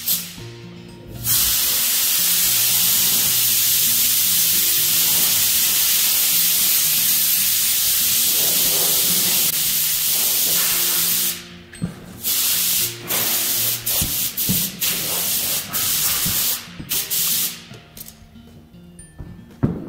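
A loud spraying hiss held for about ten seconds, then a string of short sprays, each a second or less long. Background music plays underneath.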